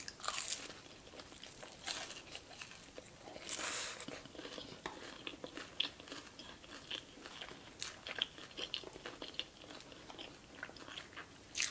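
Biting into and chewing crispy sauce-glazed Korean fried chicken. Sharper crunches come just after the start and again about two and three and a half seconds in, then a run of smaller crunches as the bite is chewed.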